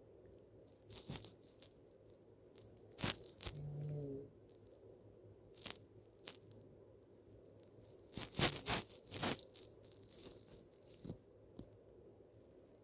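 A woman snoring in her sleep: one low, pitched snore lasting under a second about three and a half seconds in. Sharp crackling clicks are scattered between breaths, the loudest cluster a little past the middle.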